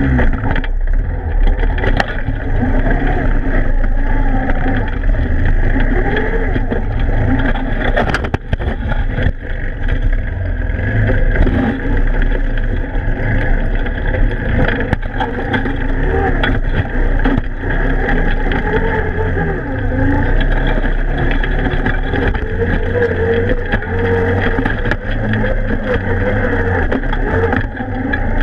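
Odes 400 ATV engine running under load, its pitch rising and falling, as the quad drives through broken lake ice and water, with a few sharp knocks from the ice.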